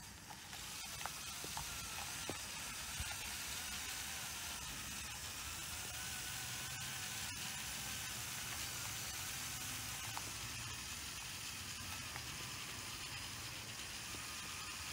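Remote-controlled LEGO Technic car chassis driving on rough asphalt: a steady hiss of tyres and drivetrain with a faint wavering whine and a few light clicks.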